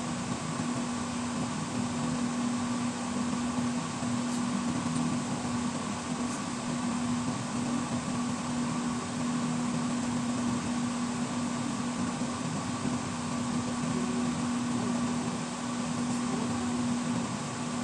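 Steady mechanical hum with one constant low tone over an even hiss, unchanged throughout, with a few faint ticks.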